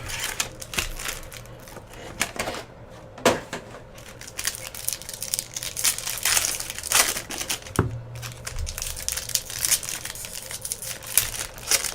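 Baseball card packs being handled: foil wrappers crinkling and cards clicking and flicking as they are flipped through one by one, in quick irregular clicks.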